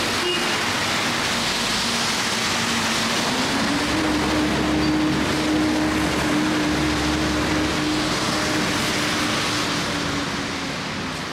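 Street traffic on a wet road after rain: tyres hissing on wet asphalt, swelling as vehicles pass, over a steady engine drone that rises slightly in pitch about a third of the way in.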